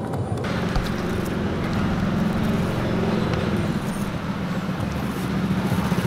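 Street traffic: a steady rumble and hiss of passing vehicles.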